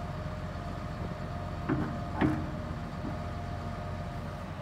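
Hitachi ZX350H-3 hydraulic excavator's six-cylinder diesel engine running steadily with a hydraulic whine as the boom and bucket move. There are two knocks from the machine near the middle, about half a second apart, and the second is the loudest.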